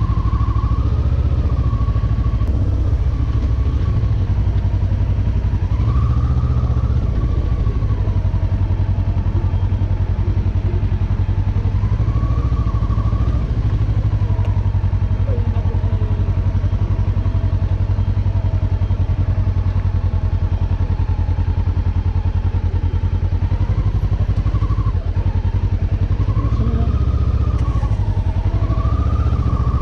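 Motorcycle engine running steadily at low speed, its pitch rising and falling a few times as the throttle is opened and closed.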